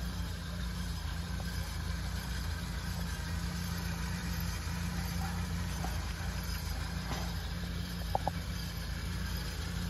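Suzuki 650 kg light truck's engine idling steadily.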